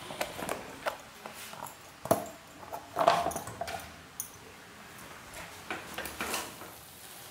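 Scattered clicks and knocks of kitchen handling, the strongest about two and three seconds in, then a steel spatula clinking and scraping in a steel kadai as the noodles are stirred near the end.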